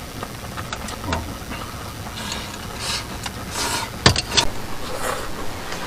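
Soup being served from a steel pot into small bowls: a few light clinks and knocks of ladle and bowls, the sharpest about four seconds in followed by two quicker ones, with short swishing noises in between over a steady low hum.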